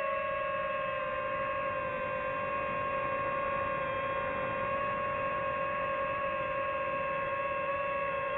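DJI FPV drone's motors and propellers whining steadily in flight, one high humming tone with overtones that shifts slightly in pitch as the throttle changes.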